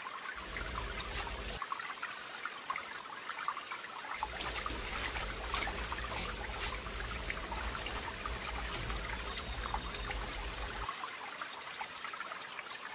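Water trickling and splashing in a plastic bucket of soapy water as a cat sitting in it is washed by hand. A low rumble comes in briefly near the start and again from about four seconds in to about eleven seconds.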